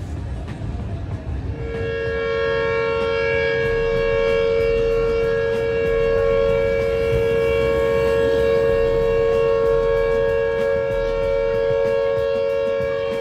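Sugar mill's hooter (factory siren) sounding one long steady tone, starting about a second and a half in, over a low rumble: the mill's signal to its workers that it is lunch time.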